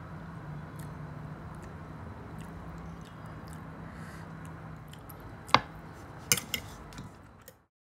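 Soft chewing of a mouthful of carbonara pasta, then a metal fork clinking against a ceramic plate a few times. The loudest clink comes about five and a half seconds in, and two quick ones follow, before the sound cuts off.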